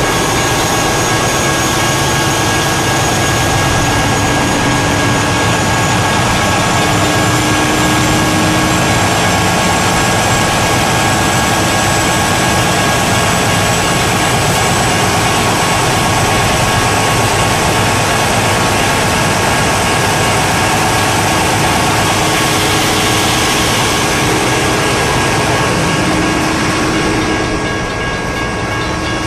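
CSX diesel locomotive's wheels slipping and spinning on the rail: steel grinding on steel in a steady, loud screech with high ringing tones, over the locomotive's engine working hard. The slip means the wheels have lost traction under load. The grinding eases near the end.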